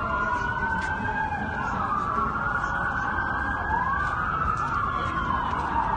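Several police sirens wailing at once, their slow rising and falling tones overlapping and sweeping up and down about every two seconds.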